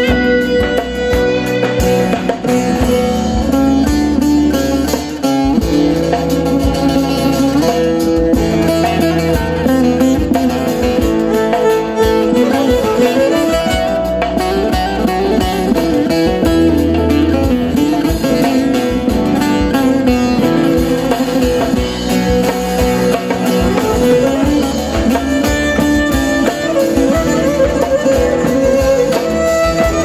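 Live instrumental Turkish folk music: a wooden folk pipe and plucked string instruments carry the tune over a steady drum-kit beat.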